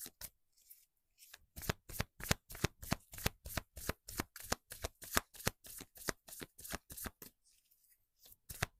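A tarot deck being shuffled by hand: a steady run of quick card slaps, about four a second, pausing briefly about a second in and again near the end.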